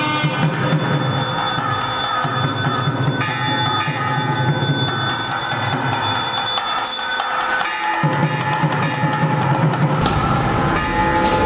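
Traditional temple music with sustained pitched tones, drumming and ringing bells, resounding through a Hindu temple hall. It breaks off briefly about eight seconds in, and the background changes abruptly near the end.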